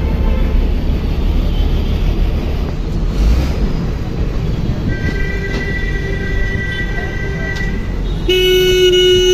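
Steady low rumble of a moving bus and street traffic. A vehicle horn sounds for nearly three seconds from about halfway in, then a louder, harsher horn blast starts near the end.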